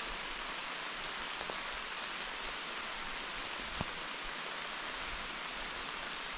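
Steady rain falling through woodland, an even hiss with one sharp tick a little after halfway.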